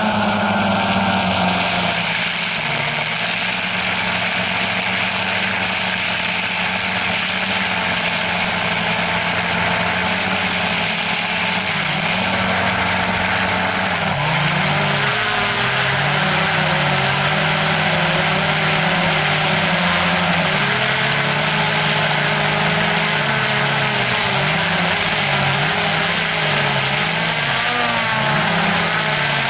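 Small quadcopter drone's motors and propellers buzzing in flight over a steady hiss, the pitch stepping up and down again and again as the motors change speed, more often in the second half.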